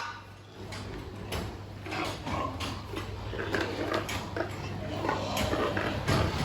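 Pigs grunting at irregular intervals, over a steady low hum.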